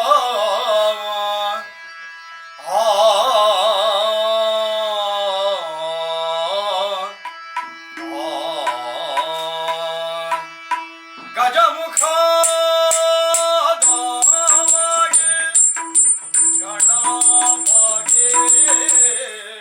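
Yakshagana-style devotional singing: a solo voice with heavy vibrato sings an invocation to Ganapati over a steady drone. About twelve seconds in, rapid drum strokes and high ringing cymbal strikes join.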